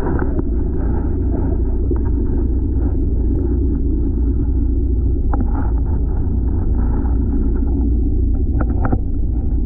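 Steady low rumble inside a boat's bait livewell, heard with the microphone in or at the water, with a few faint ticks on top.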